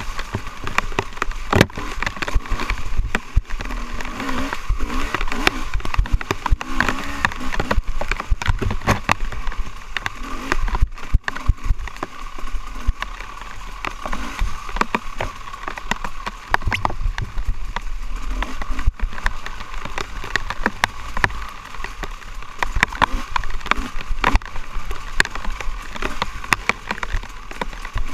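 Dirt bike engine revving up and down as it rides a muddy, rutted woods trail, with many sharp knocks and rattles from the bike bouncing over roots and ruts.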